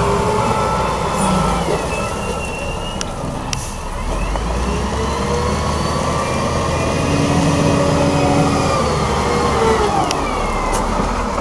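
Wheel loader's diesel engine running under load, its pitch rising and falling several times as it drives with a full bucket of gravel and lifts it high.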